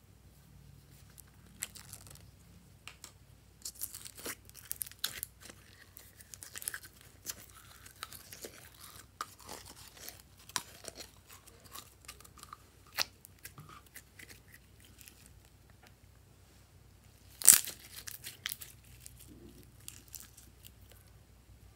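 Hands working glittery blue slime out of a small plastic bottle and stretching it: scattered crinkles, clicks and sticky crackles of the bottle and slime. One sharp, much louder snap comes about three-quarters of the way through.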